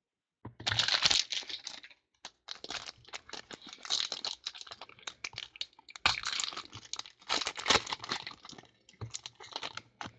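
Foil trading-card pack torn open and crinkled by hand: an irregular run of crackling rustles and small clicks, starting about half a second in.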